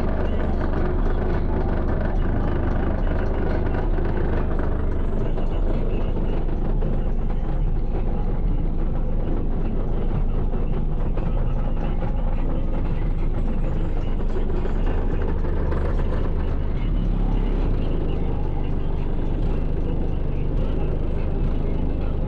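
Three Skar EVL 15-inch subwoofers in a ported box tuned to 31 Hz, driven by a 3,000-watt Audiopipe amplifier, playing bass-heavy music inside a pickup truck, heard from outside the cab: continuous deep bass notes that change in steps.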